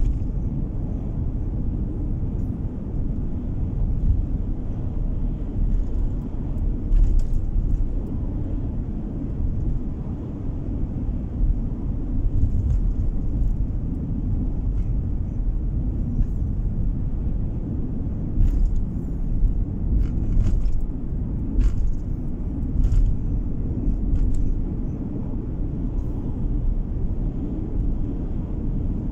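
Steady low rumble of a car's engine and tyres on the road, heard from inside the moving car's cabin, with a few faint ticks scattered through.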